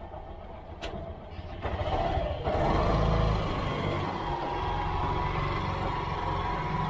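Motorcycle tricycle engine running while riding, getting louder and fuller about two and a half seconds in, with a steady whine that stays on afterwards.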